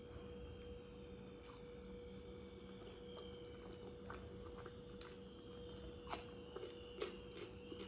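A person eating with her fingers: soft wet sounds of fingers in a bowl of curry, then chewing and lip smacks with a few sharper clicks between about five and seven seconds in. A steady faint hum underneath.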